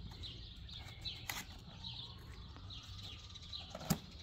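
A bird chirping repeatedly in the background, a short falling chirp every half second or so. Over it come a couple of sharp taps from a cardboard box being handled, the louder one near the end.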